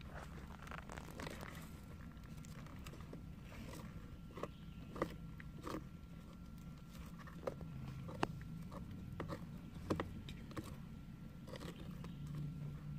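Sulcata tortoises biting into raw carrot slices: faint, irregular crunching clicks, roughly one a second.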